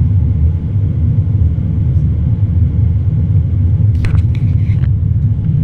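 Steady low rumble inside the cabin of a Boeing 787-9 climbing after takeoff: engine and airflow noise. A few brief sounds, like a snatch of voice, come in about four seconds in.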